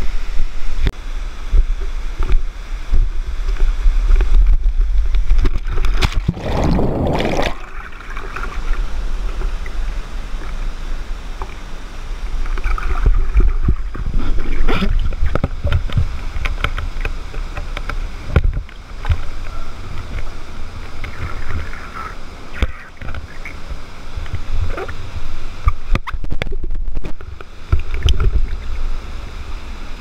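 Rushing whitewater and a small waterfall in a narrow rock gorge, heard close up with a deep rumble and scattered knocks. A louder surge of water comes about six seconds in.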